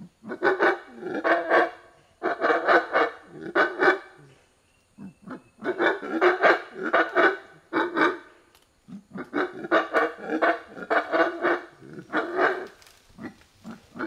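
Monkeys calling: rapid strings of harsh, barking screams in four loud bouts of a few seconds each, separated by short pauses, with a few single calls near the end.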